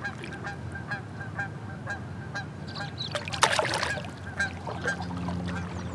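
Water splashing as a released smallmouth bass kicks free at the kayak's side, loudest in a short burst about three and a half seconds in. Geese honk over and over in the background.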